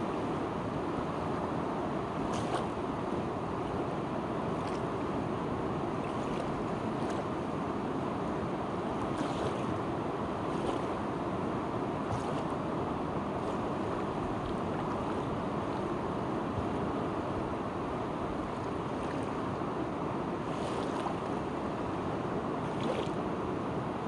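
Steady rush of a fast-flowing, muddy river running over rough shallows, with faint small splashes now and then.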